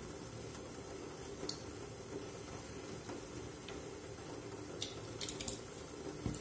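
A few light, sharp clicks from fingers handling a small saffron box: a couple scattered early, a quick cluster about five seconds in, and the loudest near the end. Beneath them is steady kitchen room tone with a faint low hum.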